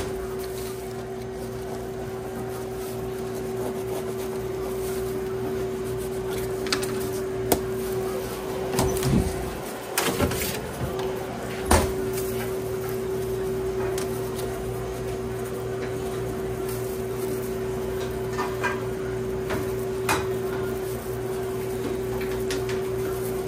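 Steady hum of shop equipment, several tones held throughout, with scattered knocks and clatters of cupboards and doors being opened and shut. The clatter is busiest about halfway through.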